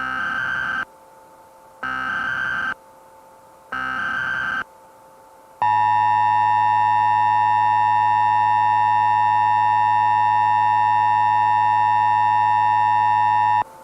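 Emergency Alert System alert tones: three short bursts of the SAME digital header, about two seconds apart, followed by the two-tone EAS attention signal held steady for about eight seconds and cutting off sharply, the signal that an emergency message is about to be read.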